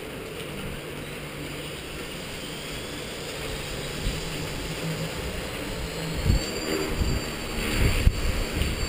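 Electric motor and rotor of a Skyartec Wasp V3 RC helicopter running with a steady whine whose pitch rises slowly in the middle of the stretch. Wind rumbles against the microphone over the last few seconds.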